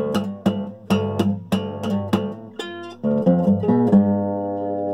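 Music: a guitar strumming chords with no singing; about three seconds in, the strumming gives way to a held, ringing chord.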